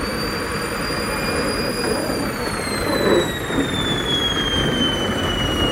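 Battery-operated amusement-park toy train running along its track: a steady high-pitched whine that slides slowly down in pitch from about two seconds in, over a continuous rumble of the running train.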